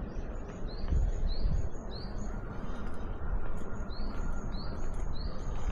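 Japanese tit singing its two-note 'tsu-pi' song, a lower note then a higher one, repeated in quick succession with a short break midway, over a steady low background rumble.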